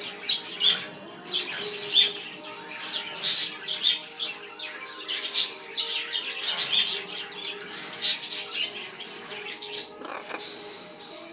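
Caged parrots chirping and squawking in short, sharp, high calls several times a second.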